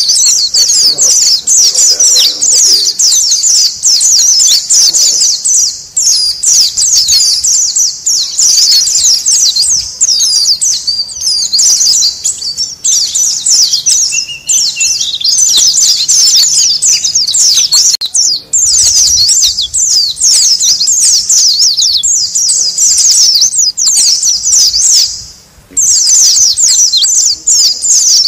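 A flock of white-eyes (pleci) chattering noisily: a dense, unbroken stream of rapid, high, overlapping chirps and twitters from many birds at once, with one brief break near the end.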